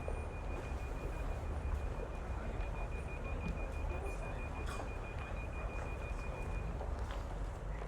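Street ambience: a steady low rumble of traffic, with a thin, high, faintly pulsing tone that stops about a second before the end, and a few faint clicks.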